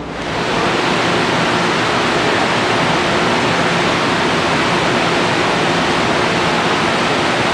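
A loud, steady, even rushing noise of a train running on the rails close by. It sets in sharply at the start and holds level throughout.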